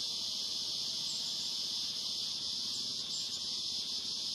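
Steady high-pitched drone of an insect chorus, with a few faint high chirps over it.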